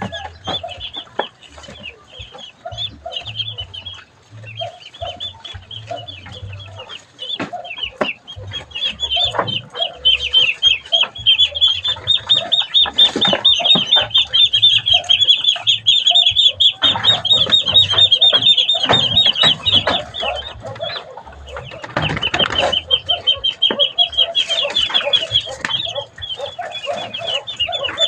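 A flock of Muscovy ducklings peeping: many rapid high-pitched peeps overlapping into a dense chorus that swells to its loudest about ten seconds in and again after a short lull. Lower, short calls run underneath.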